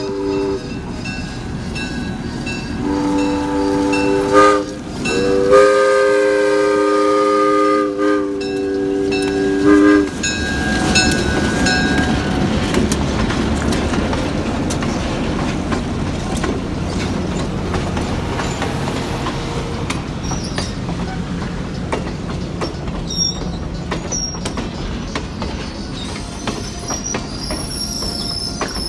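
Train horn sounding a chord in two blasts, the second and longer one lasting about four seconds, then the train rolling past with steady wheel rumble and clickety-clack over the rail joints. Faint high wheel squeal appears near the end.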